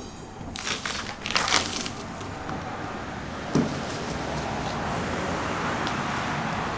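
Masking tape being peeled off a freshly painted car body: a few quick tearing rips early on, then a long, steady rasping peel.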